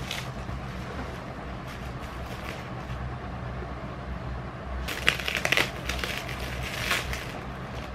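Scissors snipping through plastic stretch wrap on a parcel, the wrap crackling; a short burst of crinkling and snips comes about five seconds in, with another near the end.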